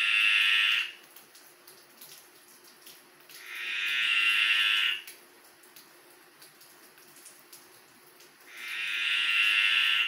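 Male graceful tree frog (Litoria gracilenta) giving its mating call: a long, drawn-out buzzing croak that swells in loudness and then cuts off sharply. One call is ending just under a second in, a second comes about three seconds in, and a third starts near the end, each lasting about one and a half seconds.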